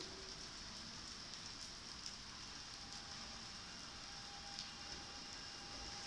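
Steady rain falling, a faint even hiss with scattered drips, and a faint steady tone joining about halfway through.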